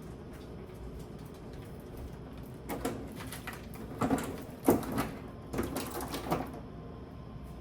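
Groceries being handled and set into a fridge: a run of knocks and clatters of containers and shelves from about three seconds in to near the end, over a low steady hum.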